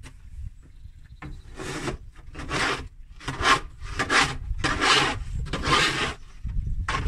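A snow-clearing tool scraping snow and ice off a walkway, about six scraping strokes in a steady rhythm, one every second or less, starting about a second and a half in.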